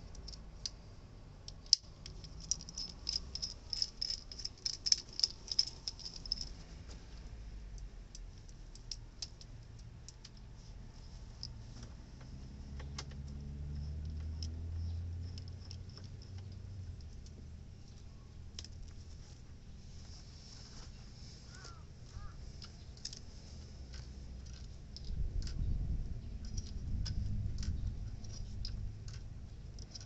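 Small rotary tube cutter being turned around a copper air-conditioner refrigerant pipe to cut it before flaring, giving a run of light metallic clicks and ticks, quickest in the first few seconds. Two spells of low rumble come later.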